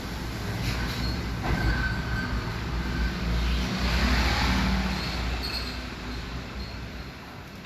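Rumbling noise of a passing vehicle, swelling to a peak about four seconds in and then fading away.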